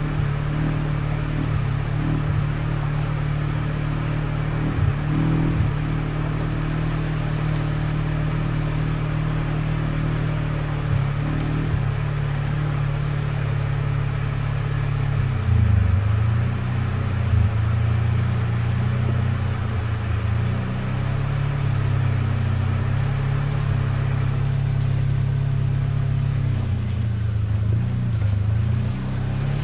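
Off-road vehicle engine running steadily while driving on a trail, its low hum shifting in pitch and rising and falling from about halfway through as the load changes.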